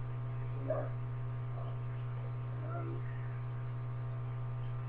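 Steady low electrical mains hum picked up by a webcam microphone, with a few faint, brief murmurs of a voice.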